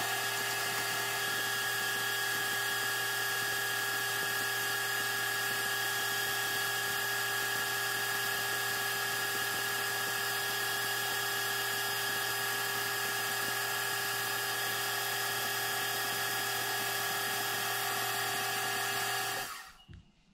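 Metal lathe running steadily under a facing cut, a constant machine whine with a low hum beneath it. It shuts off and stops near the end.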